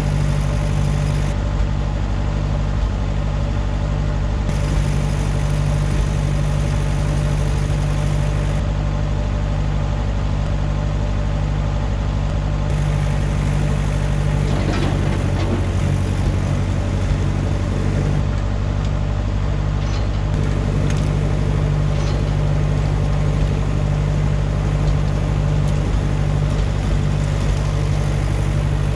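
1955 Ferguson TO35 tractor's gasoline engine running steadily at a low, even speed.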